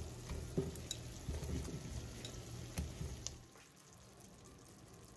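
Seared salmon pieces dropped with a utensil into a pan of simmering pineapple sauce: a soft sizzle with scattered light clinks and knocks. A little past three seconds in it drops away to faint room tone.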